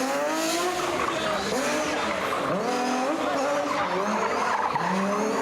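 Rally car engine revving hard, its pitch climbing and dropping again and again, with tyres skidding and squealing on tarmac.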